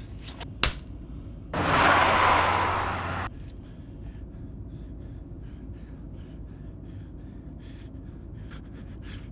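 A sharp click, then about a second and a half in a loud rushing noise of an oncoming car passing close, lasting about two seconds and cutting off suddenly. After it a low, steady car rumble, with quick, regular gasping breaths.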